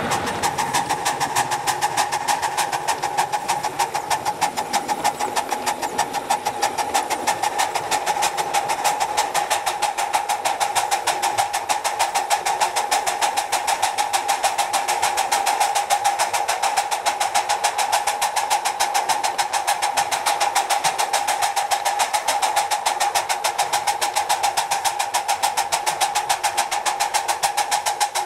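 Ride-on live steam locomotive working hard up a grade, its exhaust beating in rapid, even chuffs several times a second, with a steady high tone running underneath.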